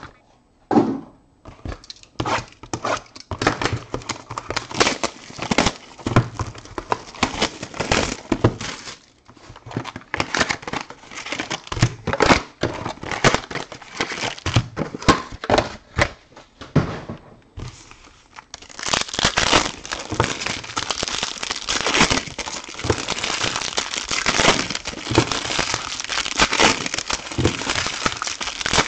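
Plastic wrapping and foil trading-card pack wrappers being handled, crumpled and torn open by hand: stop-start crinkling and tearing with brief pauses, turning into dense continuous crinkling about two-thirds of the way through.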